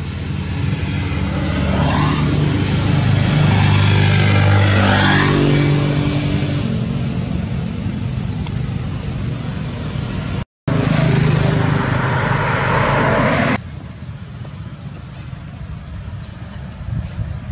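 Motor vehicle engine running nearby. Its pitch rises steadily over several seconds, as when revving up or accelerating past, and then it runs on. The sound drops out for a moment near the middle and stops abruptly a few seconds later, leaving quieter traffic-like noise.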